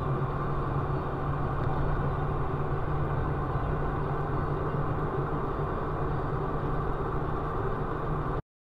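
Steady engine and road noise of a car driving on a snowy road, picked up by the dashcam inside the car; it cuts off abruptly near the end.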